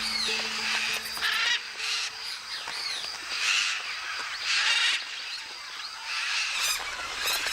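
A flock of parrots squawking: several birds give short, harsh calls, one every second or so.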